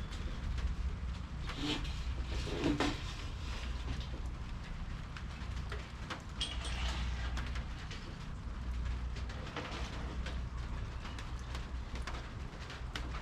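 Rain falling, with scattered drop ticks over a low steady rumble. Steel slides across cement in two short scrapes about two and three seconds in.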